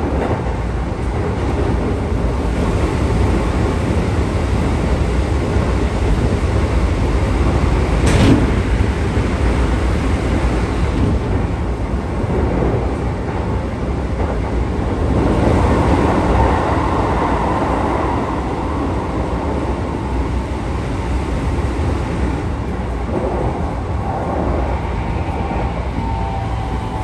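Keikyu train set 1619 running, with its electric traction motors and wheels on rail making a continuous rumble and a single sharp clack about eight seconds in. The motor sound is the unusual note the train has taken on, which the owner thinks comes from motors once fitted to set 1485.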